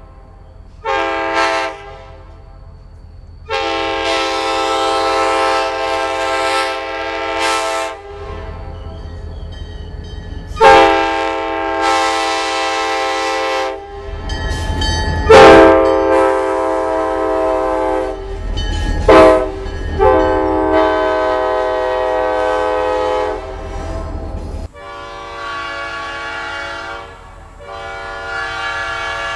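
A Leslie K5LA five-chime locomotive air horn sounded in a series of blasts, a few short and several long, each a loud steady chord, with a low rumble underneath through the middle. Near the end a different five-chime horn, an old-cast Nathan P5, takes over with shorter blasts.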